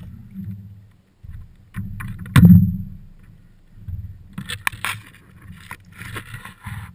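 Low, uneven rumble of water knocking under a stand-up paddleboard, with one loud hard knock about two and a half seconds in, as of the paddle striking the board. From about halfway on, a spell of rustling with sharp clicks as a rope is handled.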